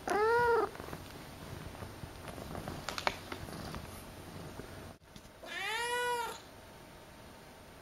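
Kitten meowing twice: a short meow right at the start and a longer one about five and a half seconds in, each rising and then falling in pitch.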